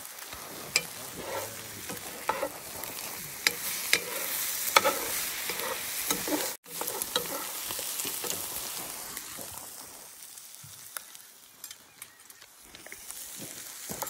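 Food sizzling in a metal skillet on a camp stove while a metal spoon stirs it, with frequent sharp clinks and scrapes of the spoon on the pan. The sizzle and stirring grow quieter in the last few seconds.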